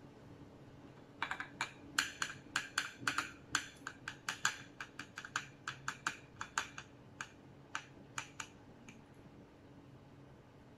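Fingers tapping a small cup to shake baking soda out into a glass jar: a run of light, sharp taps, several a second and irregular, that thins out and stops near the end.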